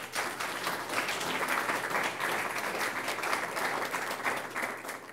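Audience applauding: dense, steady clapping from many hands that thins out near the end and then cuts off.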